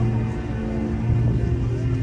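Music with held notes over a steady deep bass.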